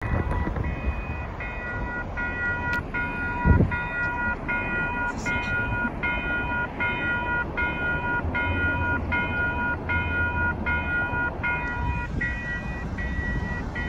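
Level crossing warning bells ringing, about two strikes a second, while the crossing's lights flash and gates are down. A steady higher tone under them cuts out near the end, and there is a single thump about three and a half seconds in.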